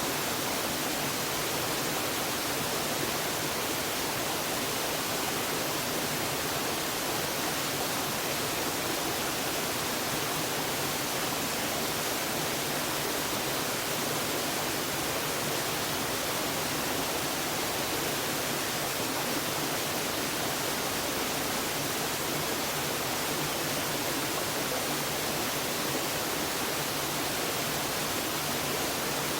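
Reirō waterfall: a steady, even rush of falling water with no change in level.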